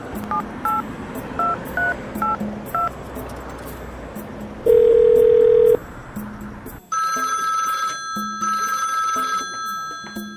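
A telephone number being dialled: a quick series of touch-tone key beeps, then a loud steady tone for about a second. From about seven seconds in, a telephone rings in repeated bursts.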